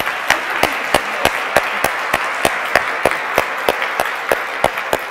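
Audience applauding, with one nearby pair of hands clapping loudly and evenly about three times a second over the general applause of the room.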